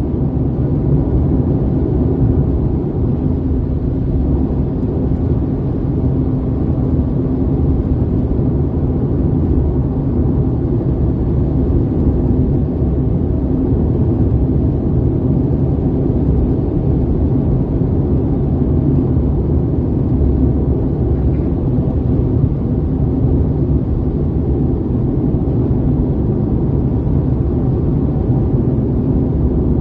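Steady low rumble of tyres and engine heard inside the cabin of a tenth-generation Honda Civic cruising at highway speed.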